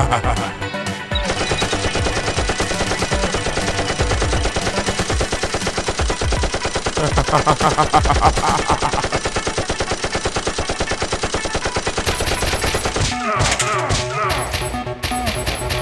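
Rapid automatic gunfire, a long, dense stream of shots, with music beneath. It starts about a second in and thins to scattered hits near the end.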